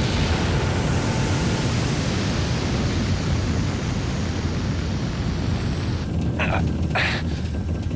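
Spaceship engine sound effect in an animated film: a loud, steady rushing rumble as the craft gets under way, with a few short sharp noises about six to seven seconds in.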